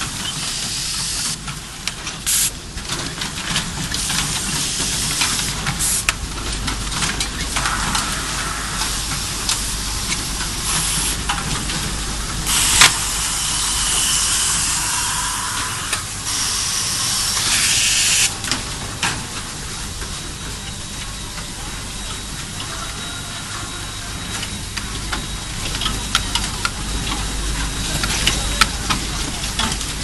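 Automated power-plug assembly line machinery running, with repeated long hissing bursts and scattered sharp clicks and clacks over a steady machine hum.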